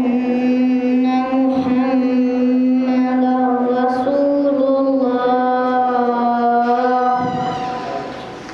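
A boy's voice chanting a religious recitation through a microphone, holding one long melodic note at a steady pitch that lifts slightly about four seconds in, then falls back and ends about seven seconds in.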